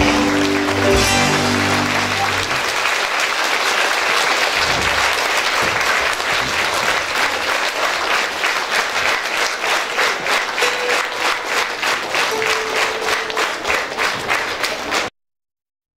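The band's last held chord rings out and stops about two and a half seconds in, under a large audience's applause. The applause settles into rhythmic clapping in unison, about three claps a second, then cuts off suddenly near the end.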